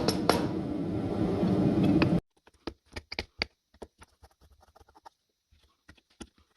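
Background music that cuts off abruptly about two seconds in, followed by faint, scattered clicks and taps.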